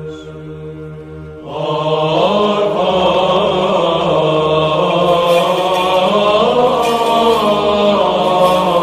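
Byzantine-style chant: voices singing a slow, moving melody over a steady held drone note, swelling louder about a second and a half in.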